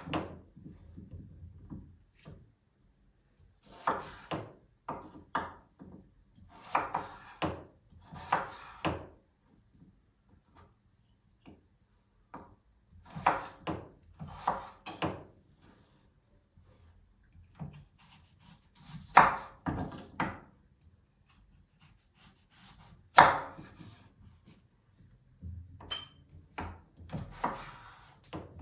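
Knife strokes on a wooden cutting board in short runs of a few knocks at a time, with quiet pauses between the runs.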